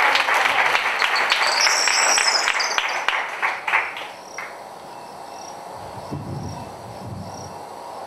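Audience applauding, a dense patter of many hands clapping that thins out and dies away about four seconds in.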